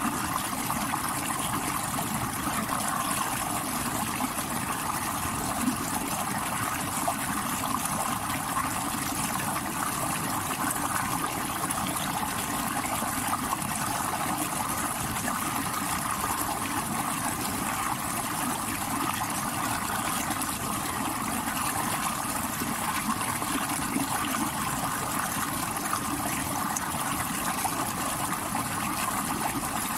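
Stream water rushing over rocks: a steady, unbroken rush of water with no pauses.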